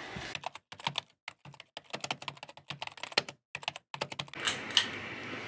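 Rapid, irregular keyboard typing clicks, a typing sound effect laid under a text title card. The clicks stop about four seconds in, leaving faint room tone.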